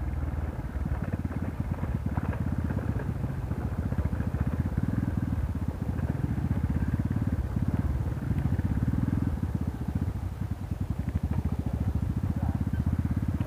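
Rusi Korak minibike's engine running at low road speed on a gravel dirt road, heard from the rider's position as an even, fast pulsing exhaust beat that eases off a little in the second half.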